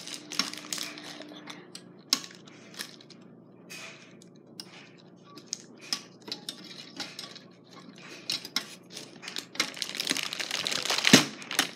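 Light clicks and clinks of a thin wire lamp frame and plastic lamp socket being handled and fitted together, with rustling of a pleated paper lantern shade, busiest near the end.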